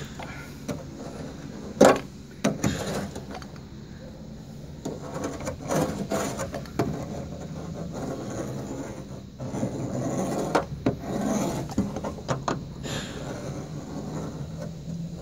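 Plastic barrel-shaped wallpaper roller being rolled and pressed over self-adhesive vibration-damping sheet on a car's rear parcel shelf: irregular rubbing strokes, with a sharp knock about two seconds in and a few lighter knocks later.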